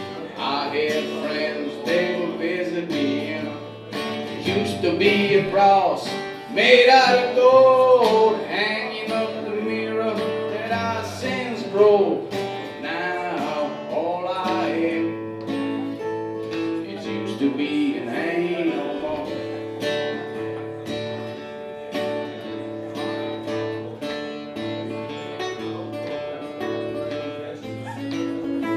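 A man singing to his own strummed acoustic guitar, a song in a live acoustic set.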